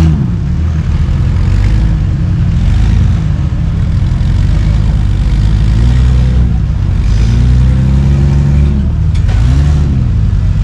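Rock crawler buggy's engine running under load as it climbs over boulders, revved up and back down several times, with rises in pitch about six, eight and nine and a half seconds in.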